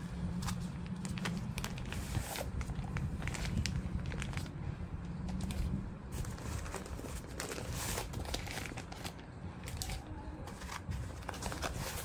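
Crinkling and rustling of white wrapping as wrapped accessories are handled and pulled out of a shoulder bag, in many short, irregular crackles. A steady low hum runs underneath.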